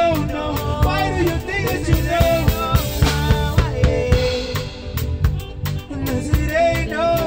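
Live band playing an up-tempo song: a man singing lead with a backing vocal over a drum kit with a steady beat, keyboard and electric guitar.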